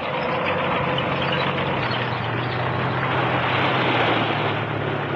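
Tank engine running steadily under a loud rushing noise that swells about four seconds in.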